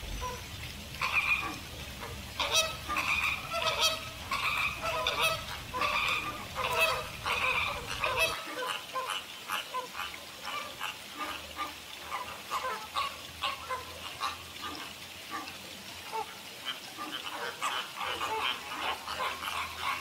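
A flock of American flamingos honking: many short calls overlapping in a continuous chorus, loudest and densest in the first half. A low background rumble drops away about eight seconds in.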